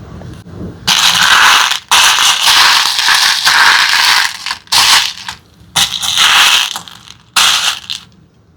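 Loud rattling, crackling noise in about five bursts, each starting and stopping abruptly.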